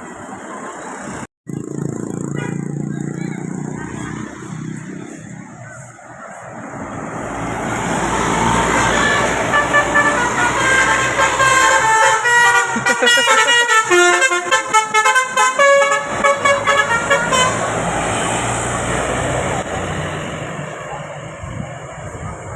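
A bus's telolet horn playing a quick tune of short notes that step up and down for about ten seconds, over the noise of the bus passing close by. The noise swells as the bus comes near and fades as it goes away.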